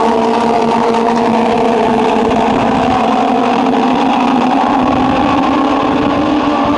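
A pack of Legends race cars' Yamaha motorcycle engines running together on the track, a steady multi-engine drone whose pitch drifts slightly up and down.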